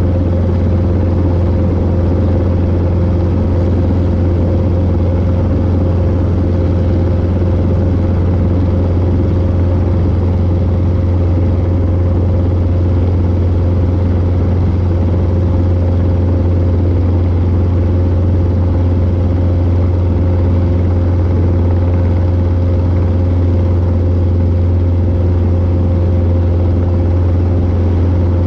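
Robinson R22 helicopter running steadily as it hover-taxis low along a taxiway, making a loud, unchanging deep drone with a fainter steady tone above it.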